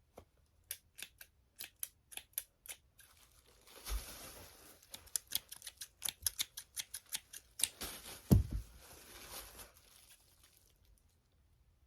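Scissors snipping over and over as they cut at a plush toy's fabric tag, with a scratchy rustling of handling from about 3 seconds in and a single thump about 8 seconds in.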